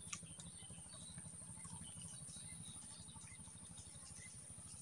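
Faint outdoor background: a low, fast, even flutter and a steady high-pitched whine, with a soft tick at the start and a few faint chirps.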